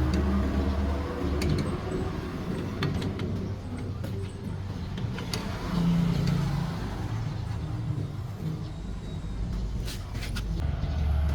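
A car engine running steadily with a low hum, and a few light clicks over it.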